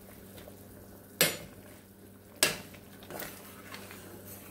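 Metal spoon stirring chicken stew in a stainless steel pot: two sharp clinks of the spoon against the pot about a second apart, then softer clinks and scraping.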